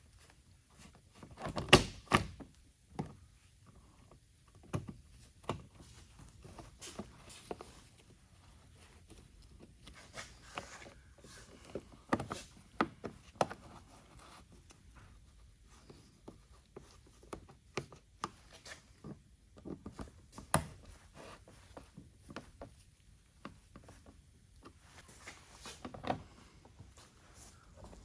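Irregular clicks, taps and knocks as the quarter-turn fasteners of a BMW X5's underbody belly pan are turned by hand and snap over centre into place, with the panel being handled. The loudest knocks come about two seconds in and about twenty seconds in.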